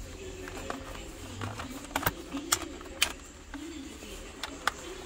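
Hard plastic clicks and snaps: the clips of a truck's climate-control module being pressed into the plastic bezel of an aftermarket stereo screen. There are a handful of sharp clicks, bunched about two to three seconds in and again near the end, over soft handling rustle.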